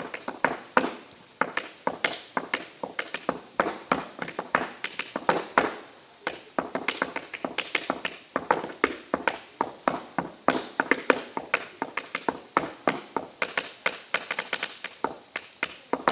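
Tap shoes striking a hard surface in fast, uneven rhythmic runs of sharp taps, with a couple of brief pauses.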